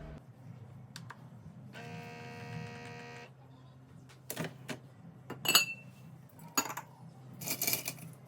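Handling sounds: a steady pitched tone lasting about a second and a half, then a string of sharp clicks and knocks, the loudest a short ringing clink in the middle, with a brief rattling cluster near the end.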